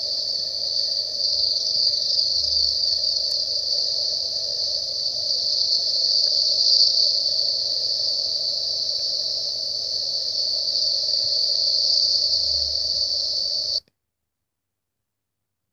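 Steady, high-pitched chorus of insects, like crickets or cicadas, running unbroken and then cutting off suddenly near the end.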